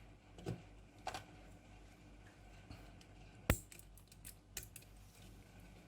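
Mechanical keyboard being handled: a few scattered sharp clicks and small knocks, the loudest one about three and a half seconds in.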